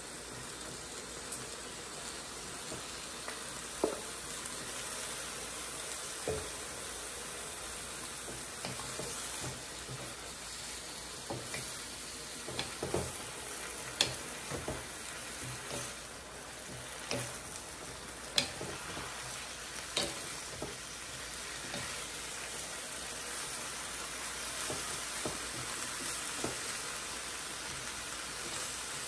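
Sliced beef and broccoli sizzling steadily in a hot wok while being stirred with a wooden spoon, with occasional sharp clicks and knocks of the spoon against the pan.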